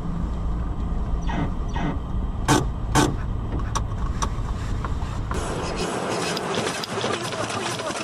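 Steady low hum of a car heard from inside the cabin, with a few sharp clicks or knocks in the middle, two of them louder. About five seconds in it switches to the even rushing noise of a car driving on a road.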